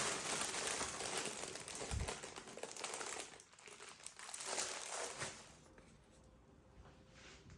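Crinkling and rustling of something being handled, in uneven strokes, dying down about two-thirds of the way in.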